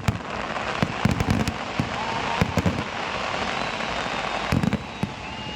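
Fireworks display: a dense, continuous crackle of bursting fireworks with several sharp booms mixed in.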